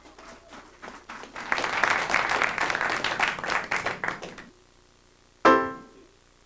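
Audience applauding for about four seconds. About five and a half seconds in comes a single loud chord from the band, which rings briefly and dies away.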